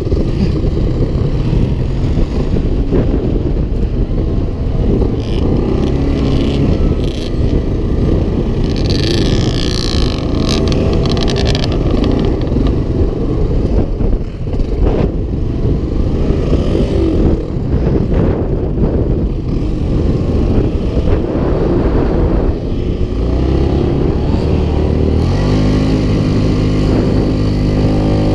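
Off-road vehicle engine running with changing revs, with a steady, even engine note from about 25 seconds in.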